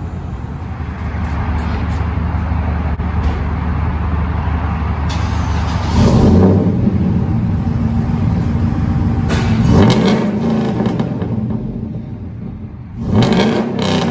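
Chevrolet Silverado pickup's engine idling with a low steady rumble through its exhaust, then revved three times, a few seconds apart.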